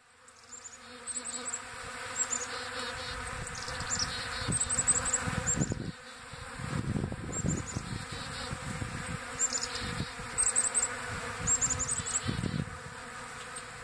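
A swarm of bees buzzing steadily as they crowd over scattered birdseed, with chickadees calling again and again in short high series in the background. A few low rumbles come and go around the middle and near the end.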